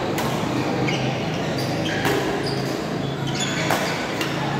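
Badminton rally: several sharp racket hits on a shuttlecock, roughly one a second, over the steady background noise of a busy sports hall.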